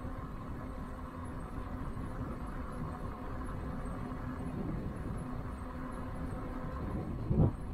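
Rad Runner 1 electric bike riding along a trail: a steady low rumble of tyres and wind, with a faint steady hum. One brief thump comes near the end.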